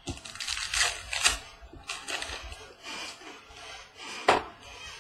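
Trading cards being handled and flipped through by hand: cards sliding and rustling against each other, with a sharp card snap about four seconds in.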